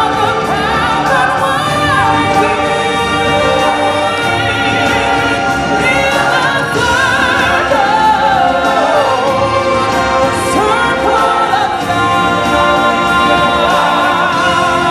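Music: a choir singing with instrumental backing, the voices holding long notes with vibrato.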